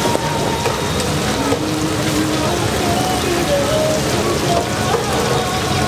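Chicken deep-frying in hot oil: a steady, dense crackling sizzle, with faint voices behind it.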